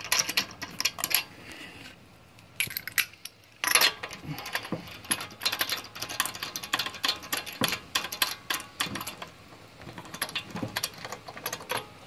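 Lug nuts being spun onto wheel studs by hand: a run of quick, light metallic clicks and rattles, with a brief pause about two seconds in.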